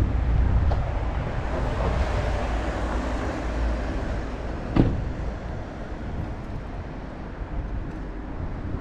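Outdoor street ambience: low wind rumble on the microphone and traffic noise that swells over the first few seconds, then fades. A single sharp knock sounds about five seconds in.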